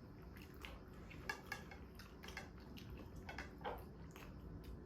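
Faint, irregular clicks and wet smacks of people eating momo dumplings, a few soft ticks every second.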